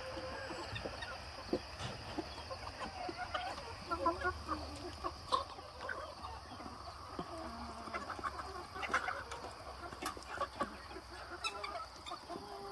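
A flock of chickens clucking and chirping, many short overlapping calls from hens, roosters and young birds.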